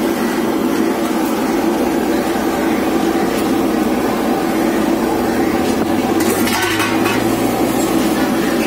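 Steady busy street noise with traffic. A low vehicle engine hum comes in about five seconds in, with a brief burst of hiss a little later.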